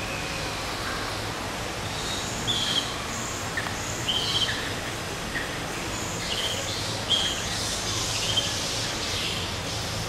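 Small birds chirping: short, high calls scattered through, a few louder ones standing out, over a steady low rumble of background noise.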